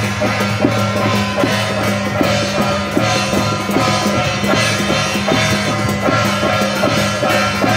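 Loud procession music: drums beating steadily, about three to four strokes a second, under a sustained melody and a steady low drone.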